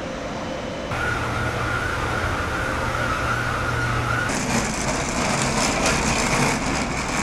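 Escalator machinery running with a steady hum and a steady high whine. After a cut about four seconds in comes a brighter hiss with a light rattle of suitcase wheels rolling over pavement.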